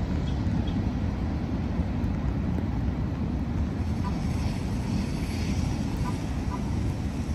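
Low, steady rumble of a passing Norfolk Southern freight train of gondola cars, mixed with wind buffeting the microphone.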